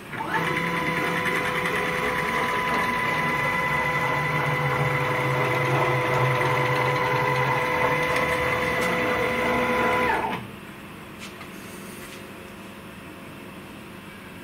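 CNC router's X-axis stepper motors driving the spindle carriage along its ball screws in a single 500 mm calibration test move, a steady whine that starts at once, runs about ten seconds and stops abruptly as the move ends.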